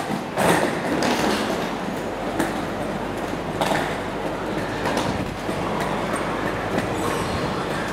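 Airport terminal ambience: a steady rumble and hiss, with a few irregular knocks.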